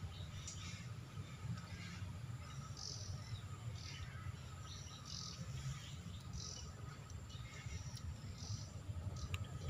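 Outdoor ambience of birds chirping, short high calls repeating about once a second, over a faint steady insect drone and a low rumble.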